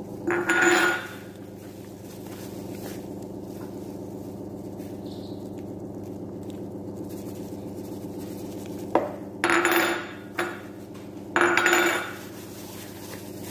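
A small bowl clinking and scraping against a plastic mixing bowl as spice mix is shaken out of it onto raw chicken: one clatter just after the start, then three more close together near the end. A steady hum runs underneath.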